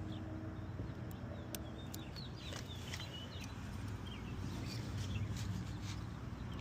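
A few short bird chirps over a steady low hum, with a few scattered light clicks.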